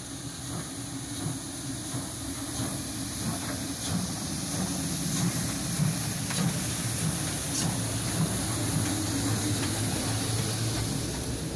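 Class 41 steam locomotive 41 018 rolling slowly past, with a steady hiss of steam over a low rumble and scattered knocks from the running gear. It gets louder as the engine draws level, loudest from about the middle on.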